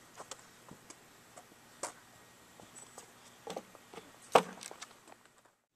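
A skateboard knocking and clattering on the ground a few times, with sharp knocks about two seconds in and again around three and a half seconds. The loudest knock comes about four seconds in, and the sound cuts off suddenly near the end.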